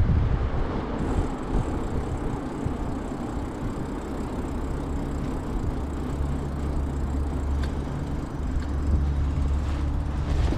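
Bicycle riding at speed: wind rushing over the microphone and tyres running on pavement, a continuous rumble. About halfway through a steady low hum of motor traffic joins it.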